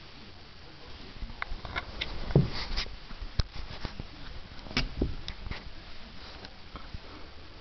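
Flat-coated retriever puppy playing on a pillow: scattered small clicks, soft bumps and rustles, with the loudest thuds about two and a half and five seconds in.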